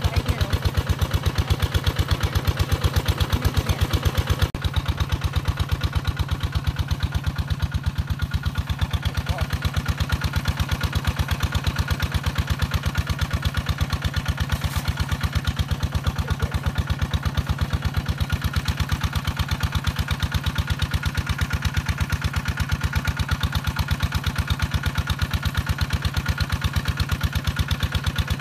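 A small engine running steadily with an even, rapid thudding beat.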